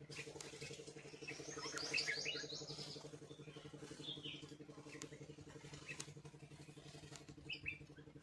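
Small birds chirping in short, high calls, a busy flurry in the first few seconds and a few more calls later, over a steady low hum.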